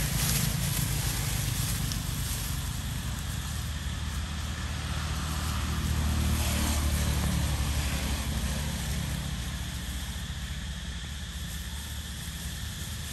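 Low engine hum of a vehicle passing at a distance. It grows louder to a peak about halfway through, then fades away.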